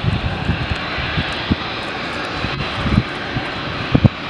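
Boeing 787-9 turbofan engines running steadily at taxi thrust, a continuous jet hiss, with irregular low thumps of wind buffeting the microphone.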